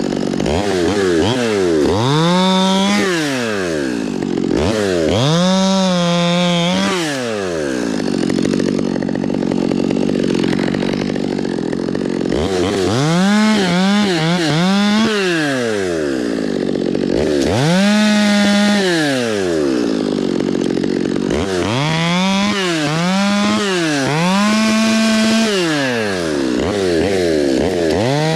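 Two-stroke chainsaw revved to full throttle and dropped back toward idle in about five long bursts, some with brief dips in speed while held open, as it saws through pine.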